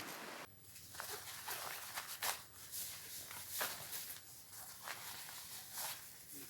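Scattered light knocks and rustles, a few each second, irregularly spaced, after a steady hiss that stops about half a second in.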